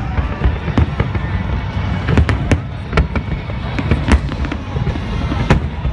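Fireworks bursting in irregular succession: sharp bangs over a continuous low rumble of further explosions.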